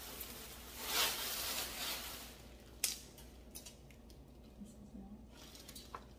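Rustling of white wrapping for about two seconds, then a sharp click and a few light taps as a branch-style metal picture frame is handled.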